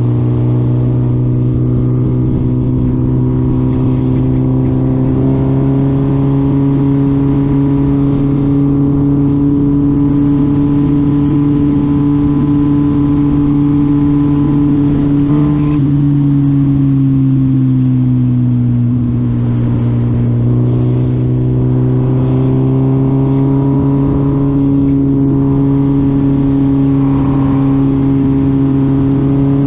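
2020 Suzuki Hayabusa's 1340 cc inline-four engine running under way at a steady engine speed. Its pitch falls from a little past halfway as the bike eases off, then climbs again as it accelerates.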